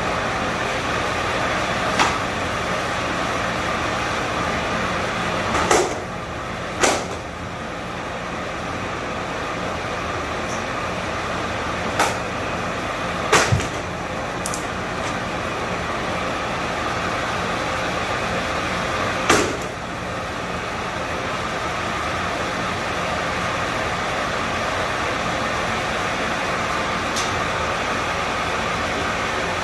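Steady mechanical running noise, with half a dozen sharp knocks or clacks scattered through it.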